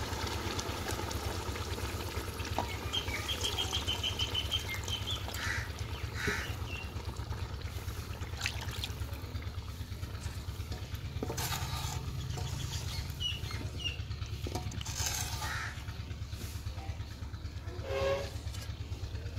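Outdoor ambience of a steady low hum with small birds chirping now and then, and a few knocks of a wooden spatula against an aluminium pot as a mutton curry thinned with water is stirred, most near the end.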